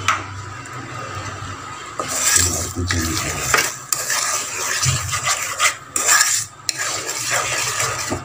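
Wooden spatula stirring and scraping boiling sugar syrup in a cooking pot, in irregular strokes that grow louder about two seconds in; the syrup is being cooked down toward one-string consistency.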